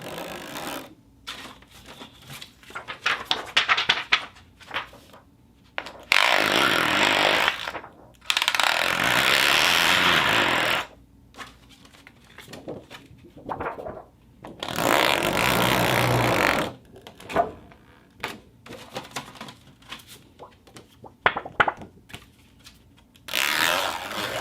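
Steel sheet handled as a foley source: scattered short clicks and rattles, broken by three long, loud scraping stretches of about two seconds each, with another beginning near the end.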